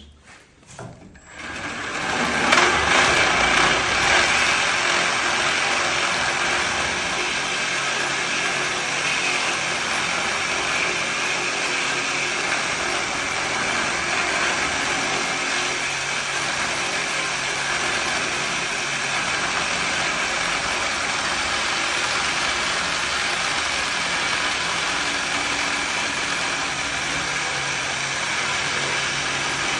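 Reciprocating saw fitted with a Milwaukee blade for steel and cast iron, cutting through a metal pipe. It starts about a second in, then cuts steadily.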